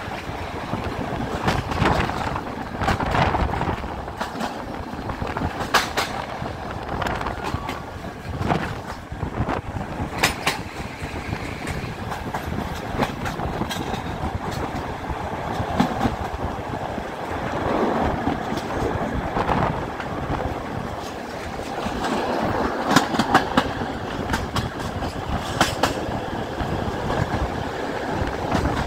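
Passenger train running at speed, its carriage wheels clattering over rail joints and points in sharp, irregular clicks above a steady rush of running and wind noise, heard from an open carriage window.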